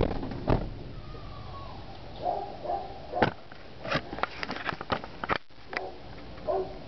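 Handling noise from a phone camera being moved around: scattered clicks and knocks, the loudest about three seconds in, with a quick run of them from about four to five seconds.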